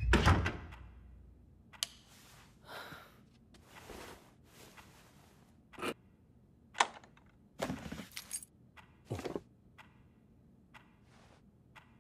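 Cartoon sound effects: a door shuts with a loud thunk at the very start, followed by a string of small clicks and short rustles as a key is fitted and turned in a desk drawer's lock.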